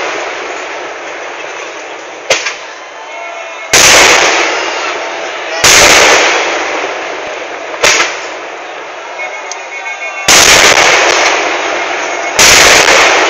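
Temple-festival fireworks going off: four heavy blasts, about 4, 6, 10 and 12 seconds in, each fading over a second or two, with two sharper, shorter bangs between them.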